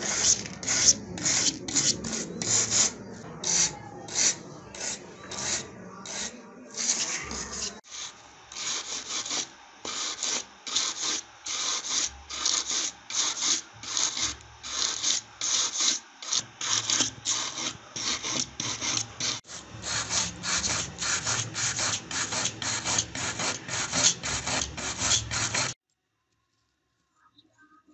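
Quick, rhythmic rasping strokes of a tool scraping flaking paint and rust off the metal body of an old die-cast toy ambulance, about two to three strokes a second. The strokes stop suddenly near the end.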